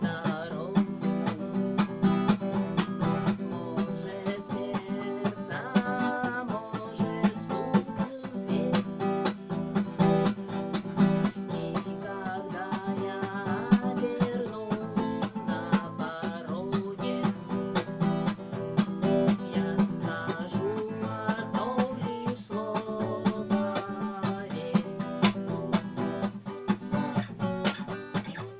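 Acoustic guitar strummed in a gallop rhythm, chords broken by sharp, percussive muted strikes on the strings.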